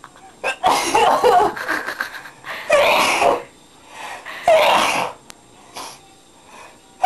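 A person's exaggerated, loudly voiced sneezes, three big bursts about a second and a half apart.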